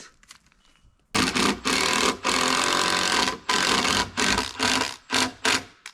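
Power drill driving deck screws into lumber: the motor starts about a second in, runs for about two seconds, then goes in a series of shorter bursts as the trigger is pulsed to seat the screw.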